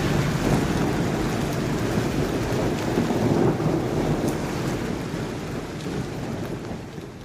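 Steady rain with rumbling thunder, swelling about three seconds in and then fading away toward the end.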